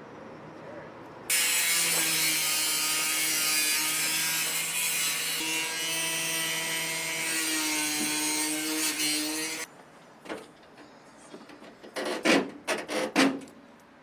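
A power cutting tool running steadily through a metal wall stud, a hiss with a steady hum under it, starting about a second in and stopping suddenly after about eight seconds. A few short, loud scrapes or knocks follow near the end.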